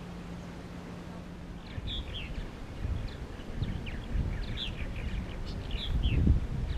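Small birds chirping over and over in short high notes, starting about two seconds in, over a low uneven rumble. A steady low hum is heard at first and stops just before the chirping begins.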